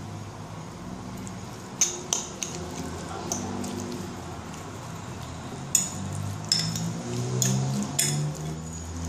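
Metal fork stirring and tossing salad in a bowl, clinking sharply against the bowl's sides several times.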